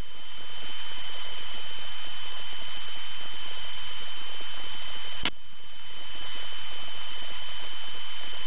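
Steady hiss from a light airplane's cockpit intercom audio feed, with faint steady high-pitched tones running through it. There is a single click about five seconds in, and the hiss dips briefly after it.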